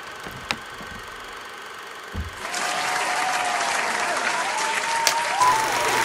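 Opening sound effects: a sharp click, a low thump, then a crackling hiss of old-film noise with wavering tones, and a short beep of a film countdown leader near the end.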